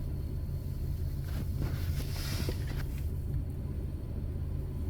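Steady low hum of a car idling, heard from inside the cabin, with a short soft rustle around the middle.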